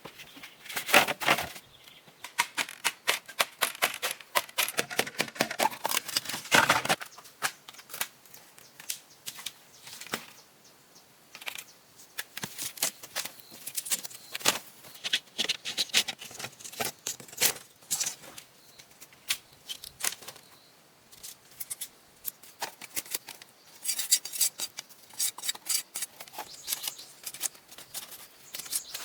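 Irregular sharp clicks and scraping, some in quick rapid runs with short pauses between, from close hand work.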